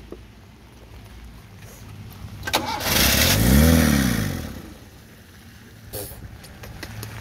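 Owner-type jeep engine cranked and catching briefly: it fires, revs up and falls back within about two seconds, then dies. The family suspects the fuel pump is not working.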